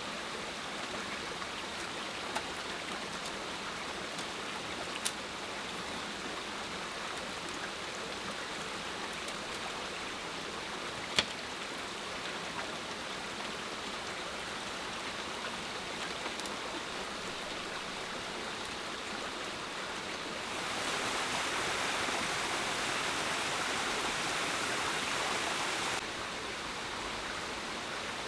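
Steady rushing noise of water, with a few sharp clicks or snaps. A louder stretch about three quarters of the way through starts and stops abruptly.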